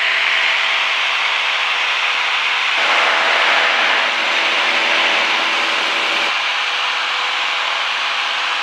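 Cessna 172 cabin noise in level cruise: the piston engine and propeller make a steady drone, over a constant rush of air. The rush grows louder for a few seconds in the middle.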